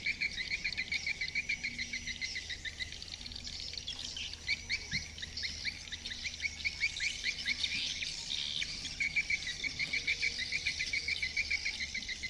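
Swiftlets twittering: a fast, unbroken run of short high chirps, several a second. This is the swiftlet call sound used to lure swiftlets to a nesting house.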